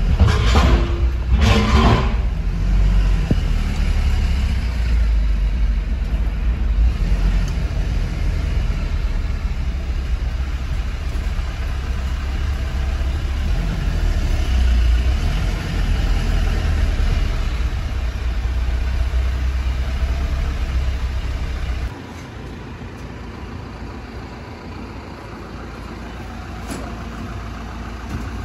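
Engine rumble of a Foton Tornado light truck, heard from inside the cab while it is driven and manoeuvred. About 22 seconds in, the rumble stops abruptly and a quieter steady background takes over.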